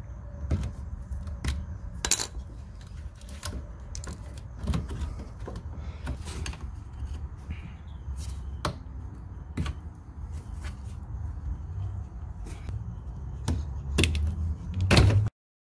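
Scattered small clicks and clinks of hand tools and plastic line fittings as a quick-connect emissions line is pried and unclipped under a car, over a low steady hum. The sound cuts out briefly near the end.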